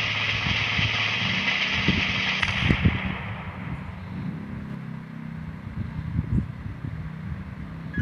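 Drumroll sound effect: a fast, steady snare roll that ends with a hit about three seconds in. It is followed by an explosion sound effect, a low rumble with scattered thuds.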